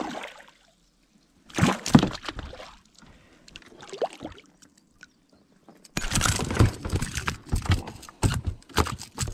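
A small hooked pike splashing in the water as it is pulled to the side of the boat and landed. There is one burst of splashing about two seconds in, a lighter one near four seconds, then a run of repeated splashes from about six seconds on.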